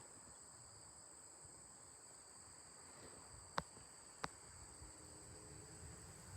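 Quiet outdoor background of insects chirring in two steady, high, thin tones. Two short sharp clicks come about half a second apart midway.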